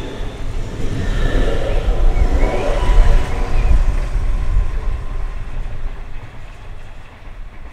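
Hamburg S-Bahn class 474 electric multiple unit leaving the station past the platform. Its wheels rumble on the rails, with a rising motor whine, loudest about three seconds in. It then fades steadily as the train draws away.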